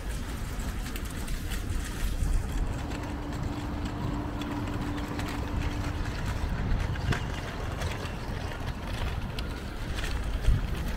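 Street traffic: cars driving past with a steady low rumble of engines and tyres, and a faint steady hum for a few seconds in the middle. A short knock near the end.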